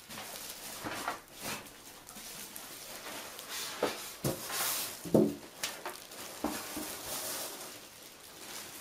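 Polystyrene foam packing pieces being pulled off a computer case: several short squeaks that fall in pitch, amid rustling of the packing.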